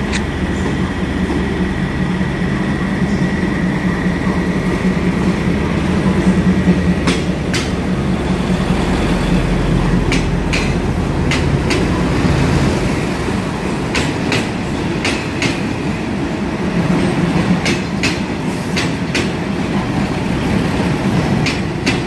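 State Railway of Thailand diesel railcar train pulling out of the platform. Its engines hum low and steady for the first half, then the wheels click over the rail joints again and again as the carriages roll past.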